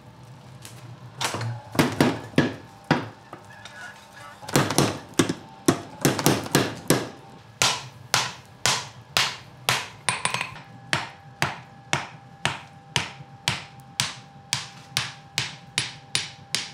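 Hand hammer blows on red-hot steel on an anvil while a knife billet is forged: scattered strikes at first, then a steady run of about two blows a second from about halfway.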